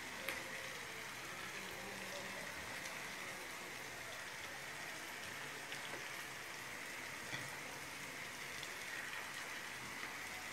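Faint steady hiss, with a few soft clicks.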